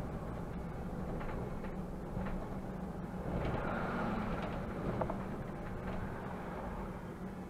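Mercedes-Benz Conecto city bus heard from the driver's cab while driving: a steady engine hum with road and cabin noise. The noise swells for about a second, roughly three and a half seconds in, and a few light clicks sound.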